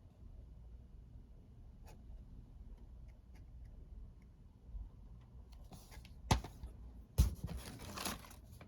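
Blu-ray and DVD cases and their packaging being handled: a few light clicks, then two sharp plastic clacks about a second apart, the second followed by rustling and scraping.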